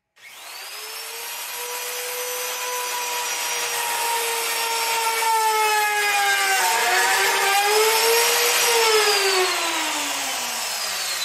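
Plunge router with a top-bearing pattern bit cutting a mortise slot in red oak plywood, following a masonite template. The motor whine starts at the outset, with wood-cutting noise over it. Its pitch dips briefly about two-thirds through, then falls steadily near the end as the router winds down.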